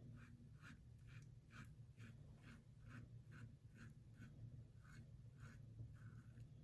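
Faint, quick scraping strokes of a King C. Gillette double-edge safety razor with a Wilkinson Sword blade drawn across a lathered face, about two strokes a second.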